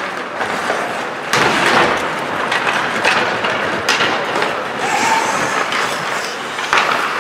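Ice hockey play on a rink: skates scraping and hissing on the ice, with sharp knocks about a second in, around four seconds in and near the end.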